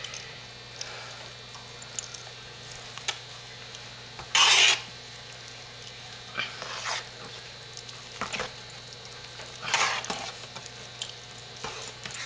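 A stainless steel spoon stirring thick hot-process soap paste in a large turkey roaster, in irregular scraping strokes against the pot. The two loudest strokes come about four and ten seconds in. The soap is being stirred until its glassy patches turn opaque again.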